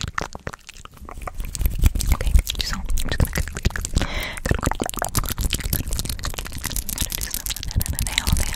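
Fast ASMR mouth sounds and hand sounds right on a condenser microphone. Rapid wet clicks and pops mix with low thumps and rubbing from hands brushing and tapping over the microphone grille.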